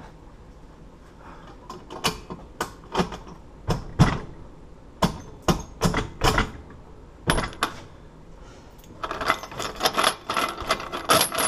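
Metal bolt cutters and a hardened steel padlock being handled: a dozen or so sharp separate clanks and knocks, then a dense rattling clatter near the end.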